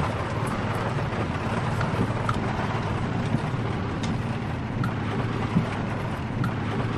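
Four-wheel-drive truck running slowly over a rough, washed-out dirt track: a steady low engine and tyre rumble with a few sharp clicks and knocks scattered through it.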